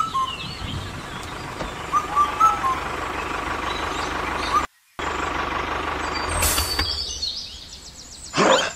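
Birds giving short, repeated chirps over a steady hiss of falling rain. The sound cuts out completely for a moment about halfway through, then the rain hiss resumes.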